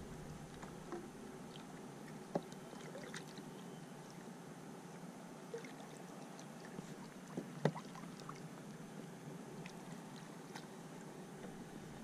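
Quiet water sloshing and small splashes at the side of a kayak as a grouper is held in the water for release, with a few short sharp knocks, the loudest about two-thirds of the way through.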